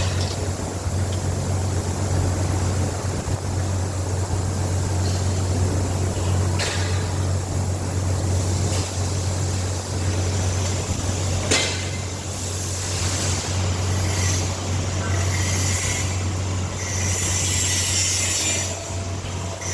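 A machine running with a steady low hum, with two sharp clicks; from about twelve seconds in, patches of high hissing or scraping noise come and go over it.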